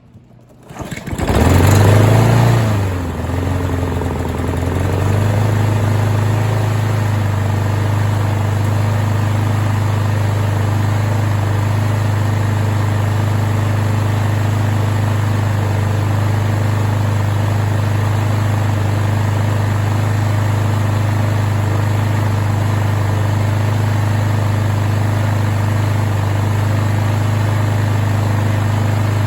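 Craftsman self-propelled lawn mower's small engine starting about a second in, surging unevenly for a few seconds, then settling into a steady, even run. This is its first start on a freshly installed replacement carburetor, and it runs well.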